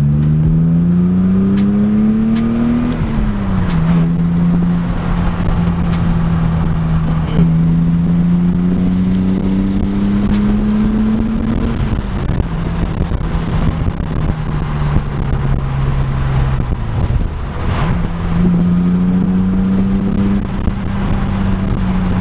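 BMW E36 engine running through a newly fitted aftermarket exhaust while driving. The engine note rises steeply under acceleration, then drops sharply at a gear change about three seconds in. After that it holds fairly steady, with a few slower rises and drops in engine speed.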